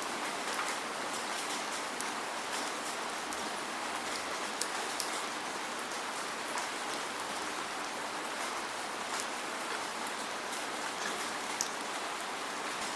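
Steady rain without thunder, an even hiss with scattered sharp drop ticks.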